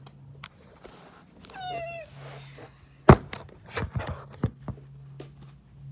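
A cat meows once, a short call falling slightly in pitch, about one and a half seconds in. About three seconds in comes a sharp, loud knock, followed by a few softer knocks.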